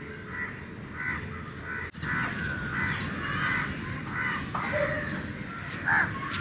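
Crows cawing repeatedly, short harsh calls coming every half second or so, with a single sharp click about two seconds in.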